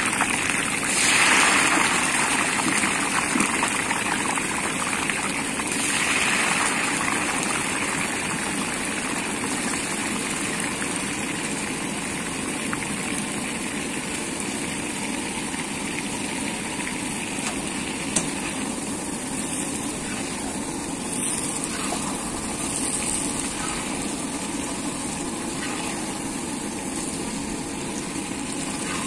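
Battered cauliflower florets deep-frying in hot oil in a large iron kadhai: a steady sizzling and bubbling, swelling louder about a second in and again around six seconds. A single sharp tick sounds about eighteen seconds in.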